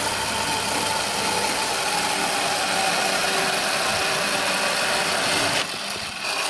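Saw chain on a homemade fixed-bar log cutter, driven by an electric motor, running steadily. The sound dips briefly near the end.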